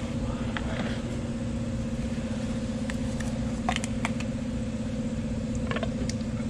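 A steady mechanical hum from a running machine, with a few faint light clicks from handling the oil bottle and funnel while engine oil is poured in.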